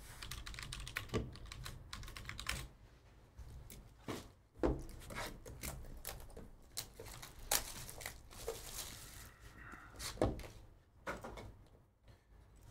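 Cardboard trading-card box being handled and opened: irregular light clicks and taps, with a few louder knocks and a brief scrape of cardboard.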